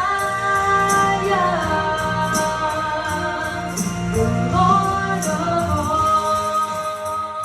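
Gospel worship music: voices singing long held notes that glide between pitches, over bass and a steady high percussion beat.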